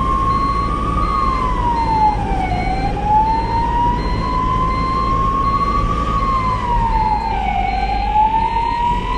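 Ambulance siren wailing in a slow cycle: the pitch climbs gradually, falls away quickly, then climbs again, about every five seconds, over a steady low rumble from the moving vehicle.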